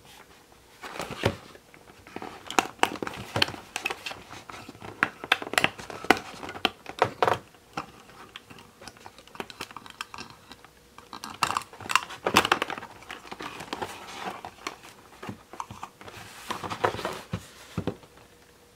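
Crinkling and rustling of a doll's toy-box packaging, with irregular clicks and taps, as hands work a small accessory loose from it. The handling comes in bouts, with short pauses about halfway through and again a few seconds before the end.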